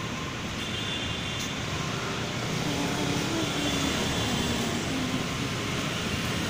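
City street traffic noise: a steady wash of passing cars and idling engines at a busy intersection.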